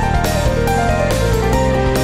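Background music with a melody of held notes over a steady beat.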